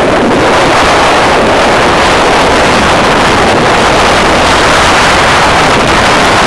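Loud, steady wind noise buffeting the microphone, over water rushing along the hull of a sailing yacht under way.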